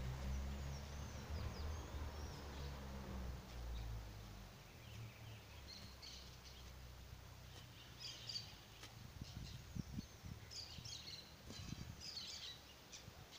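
Birds chirping in short scattered calls over low outdoor background noise, with soft thuds and scrapes of a small hand hoe chopping weeds in garden soil. A low rumble fills the first few seconds.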